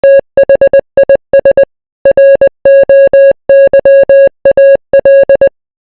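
Morse code: a steady beep of one pitch keyed on and off in short dots and longer dashes, grouped into letters with brief gaps between them and a longer pause about two seconds in.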